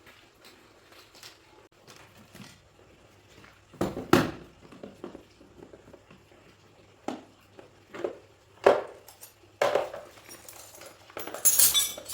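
Scattered metallic clinks and knocks of tools and machine parts being handled, with louder knocks about 4, 8.5 and 10 seconds in and a short jangling rattle near the end.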